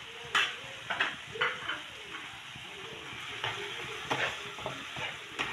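Chicken pieces sizzling in a frying pan with garlic, ginger, yogurt and spices, while a spatula stirs them. The spatula scrapes and knocks against the pan several times, roughly once a second, over a steady sizzle.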